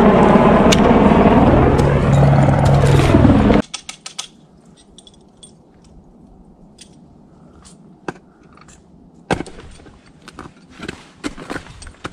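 A loud, steady rushing noise, cutting off abruptly about three and a half seconds in. Then quiet, scattered scrapes, knocks and clinks: ice axes and crampons biting into snow-ice and climbing gear rattling.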